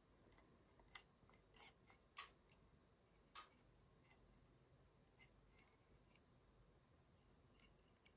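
Near silence broken by a few faint, sharp clicks and taps of small plastic model-kit parts and hobby tools being handled as a part is fitted, the clearest ones in the first few seconds.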